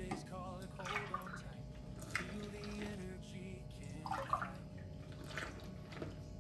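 Milk being poured from a glass into a stainless steel saucepan of flour and sugar, splashing in several separate pours, over soft background music.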